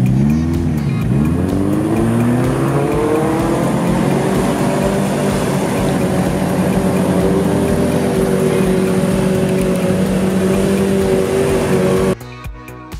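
Subaru Outback wagon's engine revving hard as it ploughs through deep mud, the revs dipping and rising a few times, then climbing and holding high. About twelve seconds in it cuts off suddenly to music with a steady beat.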